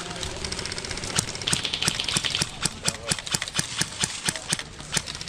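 Running footsteps on the ground, about four steps a second, starting about a second in, with gear knocking along with each stride.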